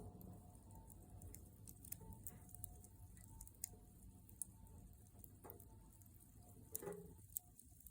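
Wood fire crackling faintly in a fire pit, with scattered sharp pops, the loudest about seven seconds in.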